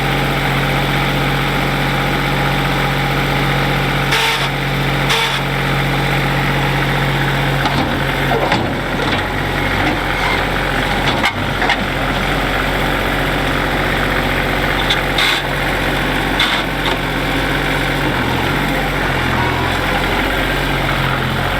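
Engine of a stuck vehicle running steadily at idle, with a few brief knocks about four, five, fifteen and sixteen seconds in.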